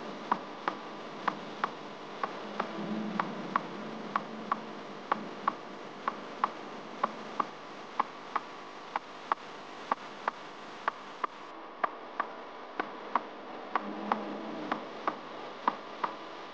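Background music: a sparse, even beat of sharp ticks, about two to three a second, over a soft low tone.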